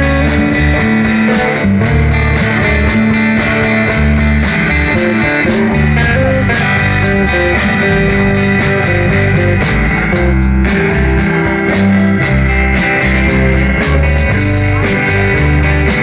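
Live rock band playing with electric guitars, acoustic rhythm guitar, bass guitar and a drum kit keeping a steady beat.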